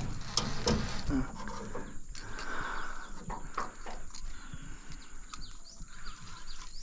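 A small fish thrashing in the hand: scattered knocks and rustles.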